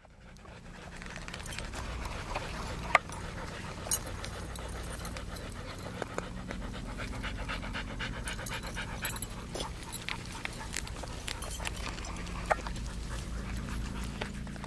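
Siberian husky panting close by with its mouth open, the breaths coming in a quick, even rhythm. A few sharp clicks stand out, the loudest about three seconds in.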